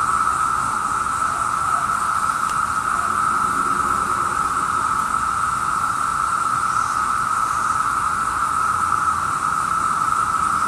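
Massed chorus of Brood II periodical cicadas (Magicicada): a loud, steady drone held at one pitch without let-up.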